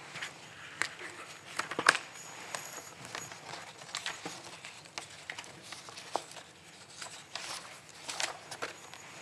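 Paper and a card folder being handled and shuffled: scattered rustles and small taps, the sharpest about two seconds in.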